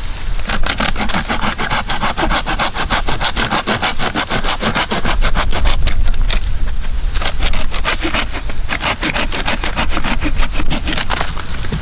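Folding hand saw cutting through a thick hickory log in fast, regular back-and-forth strokes, with a short break a little past halfway before the strokes resume.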